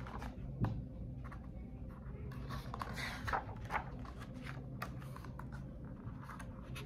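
Pages of a paperback picture book being turned and handled: a soft knock about half a second in, then a few papery rustles around the middle, over a steady low room hum.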